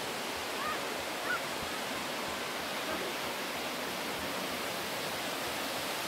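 Steady rushing of the Great Falls of the Passaic River, a 77-foot waterfall, pouring over a rock ledge.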